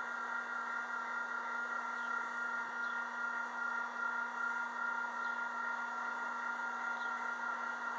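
Steady mechanical hum and hiss, with several steady tones holding unchanged.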